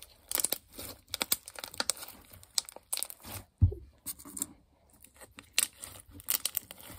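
Homemade purple borax slime squished and kneaded by hand, giving off irregular clicks and pops as it is squeezed: clicky slime. A single dull thump about three and a half seconds in.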